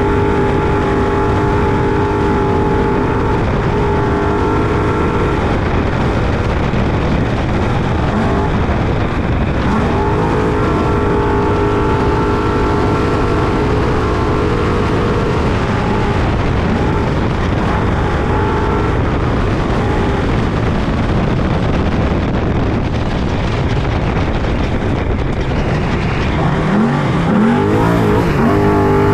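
Trophy truck engine running hard at race speed, heard on board over a constant rush of noise. The engine note holds steady for long stretches, then rises and falls in quick sweeps near the end as the throttle comes on and off.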